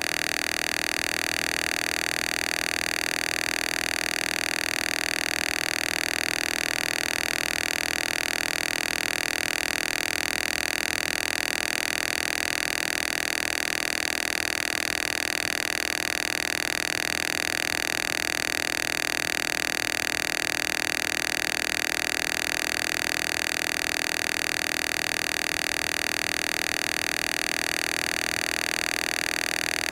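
Synthesized frequency-therapy tones, many steady pitches sounding together as one unchanging, shrill electronic drone.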